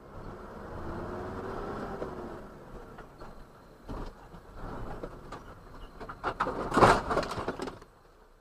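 Vehicle engine and road noise as heard by a dash camera, with a sharp knock about four seconds in. Near the end comes a burst of loud bangs and clattering, loudest about seven seconds in.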